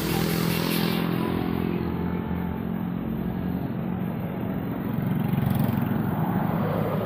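Motor vehicles running in traffic on a rain-wet road: a steady engine hum, which swells louder about five seconds in.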